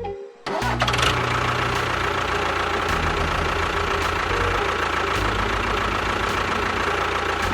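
Engine idling steadily with a low chugging pulse, starting about half a second in after a brief gap.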